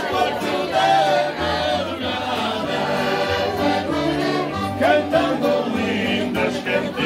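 Portuguese folk singing with acoustic guitar accompaniment: several voices singing over steady strummed chords.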